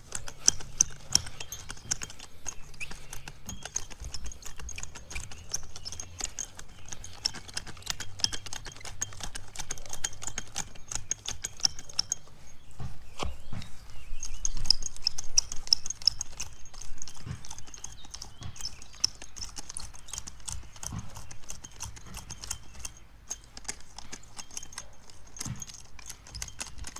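Garden Weasel cultivator's spiked steel tine wheels worked back and forth through loose topsoil, a steady run of clicks, clatters and crunches as the tines break up the soil and blend the new topsoil into the ground beneath.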